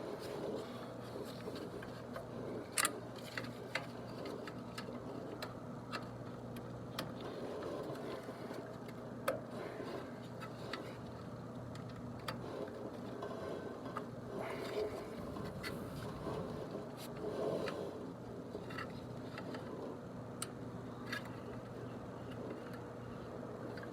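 Scattered clicks, taps and short scrapes of hand tools and wiring being worked in a condensing unit's electrical compartment while a capacitor and hard-start kit are installed, over a steady low hum.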